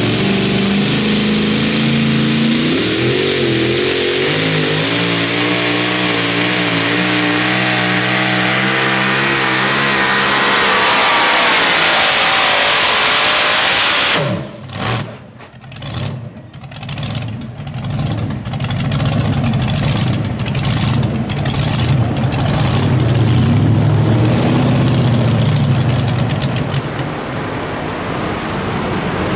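Pulling vehicle's engine at full throttle during a pull, its pitch wavering and climbing. About halfway through it cuts back abruptly and stutters for a few seconds, then carries on at a lower, uneven run.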